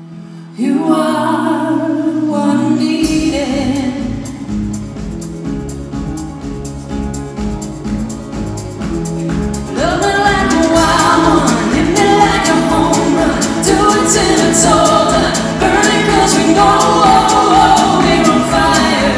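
A small live band plays a song with singing: archtop guitar, upright double bass, drum kit and keyboard. A low bass line and a steady ticking beat come in about three seconds in, and the whole band gets fuller and louder about ten seconds in.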